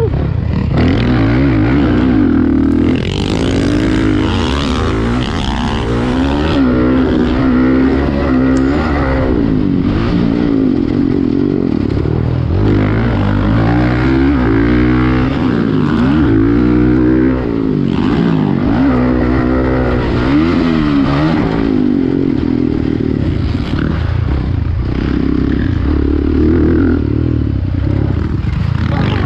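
A 2017 Honda CRF450R's single-cylinder four-stroke engine, heard close up from the bike as it is ridden hard on a motocross track: the pitch climbs and drops again and again as the throttle is opened and closed and gears are changed.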